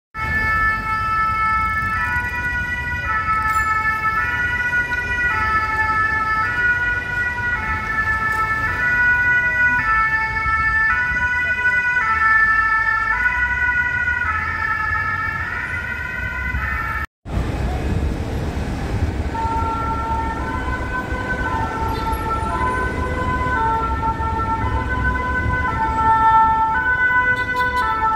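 French fire brigade two-tone sirens, the "pin-pon", stepping back and forth between a high and a low note over the rumble of engines and traffic. About two-thirds of the way through, the sound cuts out for a moment and comes back as a lower-pitched two-tone siren.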